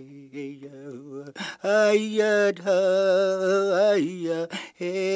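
A man singing a chant-like song in long, wavering held notes over a low steady note, soft at first and swelling to full voice about a second and a half in.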